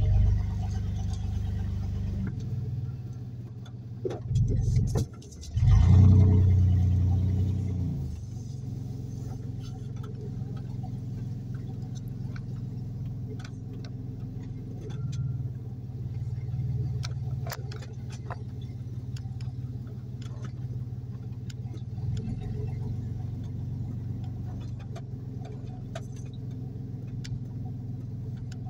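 Car engine and road noise heard from inside the cabin, with louder surges in the first few seconds, the loudest about six seconds in as the car pulls away. It then settles to a steady low drone while driving slowly, with scattered small knocks and rattles.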